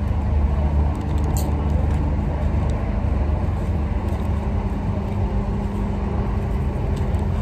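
Steady low rumble of motor vehicle engines and road traffic, with a constant hum.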